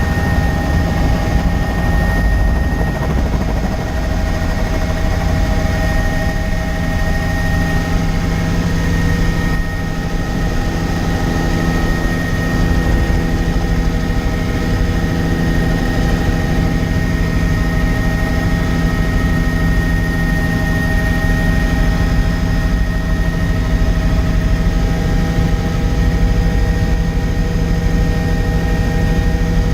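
Helicopter in steady flight, heard from on board: a constant deep rotor and engine drone with a steady high-pitched whine over it.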